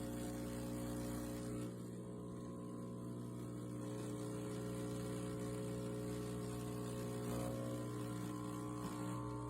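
Espresso machine running with a steady electric hum of its pump, just before coffee pours.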